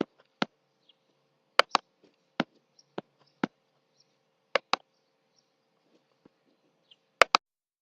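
Sharp clicks at irregular intervals, about a dozen, several in quick pairs, over a faint steady hum.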